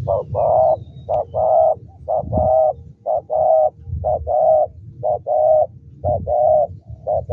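Spotted dove cooing: a two-note phrase, a short note then a longer one, repeated steadily about once a second.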